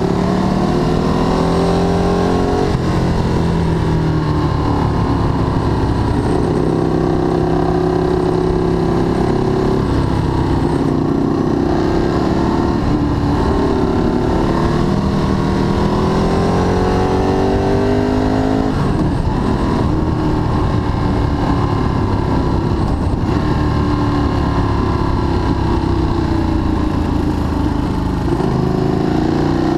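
Ducati Streetfighter 1098S's 1099 cc L-twin engine heard from on board. It revs up and down repeatedly through a series of bends, over steady wind noise on the microphone.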